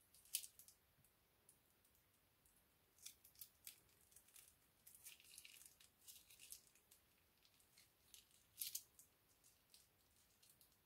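Thin clear plastic glue packet crinkling and crackling as it is twisted and squeezed in the hands, in irregular bursts of sharp crackles, the loudest right at the start and again near the end.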